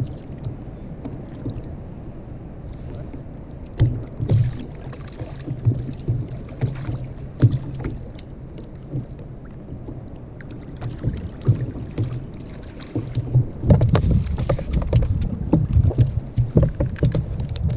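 A hooked fish being reeled in to a sit-on-top kayak: fishing reel winding, with water splashing and scattered knocks against the kayak. It grows busier and louder in the last few seconds as the fish is lifted out of the water.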